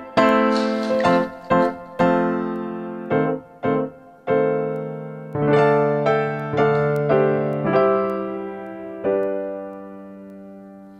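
Background music played on a piano-like keyboard: a slow tune of struck notes and chords. The last chord rings out from about nine seconds in and fades away at the end.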